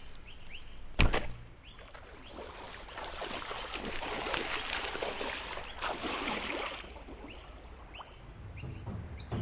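A sharp bowstring snap about a second in as an arrow is loosed, then a few seconds of splashing and sloshing as a person runs and wades into shallow pond water.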